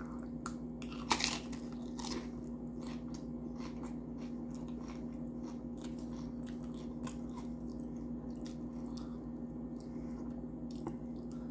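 Close-up chewing of a mouthful of Doritos nachos, with irregular crisp crunches of the tortilla chips; the loudest crunch comes about a second in.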